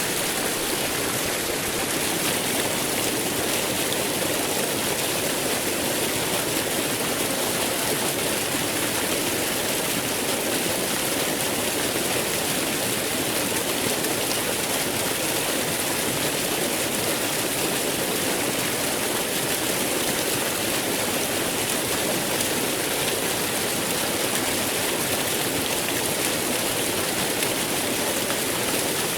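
Waterfall pouring steadily: a constant rush of falling water without breaks.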